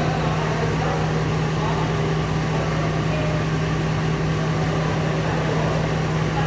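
Steady mechanical hum of running machinery, a constant low drone with a noisy wash over it that doesn't change.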